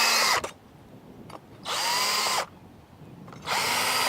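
Electric drill with a 7/32-inch bit boring pilot holes in a gate post, run in three short bursts: one ending just after the start, one about two seconds in, and one starting near the end. The motor whine rises as each burst begins and falls away as the trigger is released.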